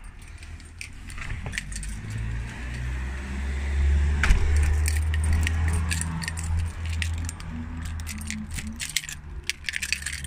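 A bunch of keys jangling and clinking in a hand, throughout. Under it a passing car's engine rises to its loudest about four seconds in and then fades away.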